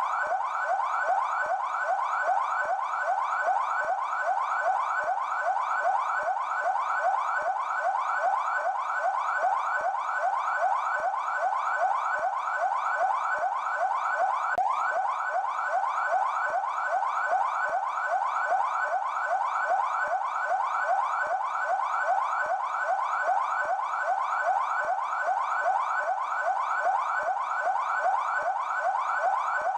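Brazilian São Paulo Military Police (PMESP) electronic siren in yelp mode: a fast wail whose pitch sweeps up quickly and repeats several times a second, steady and unbroken.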